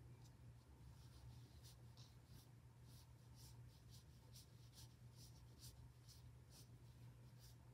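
Faint, short swishes of an ink brush dragged across paper, about two strokes a second at an irregular pace, over a low steady hum.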